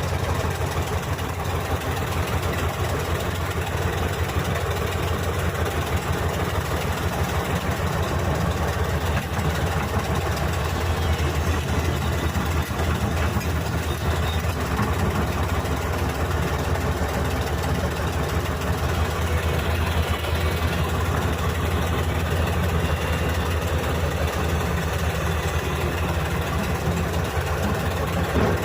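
Heavy diesel engines of earthmoving machines running steadily at low speed, with a strong low rumble.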